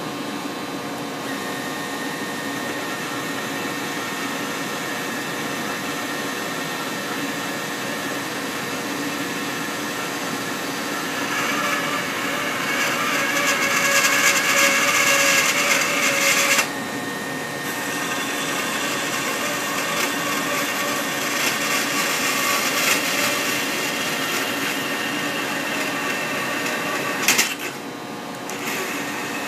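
DeWalt portable band saw running and cutting through a metal bar, a steady motor hum with a high whine and hiss from the blade. The cutting grows louder and harsher about a third of the way in and drops off abruptly a little past halfway. Near the end there is one sharp click, then a brief dip in the sound.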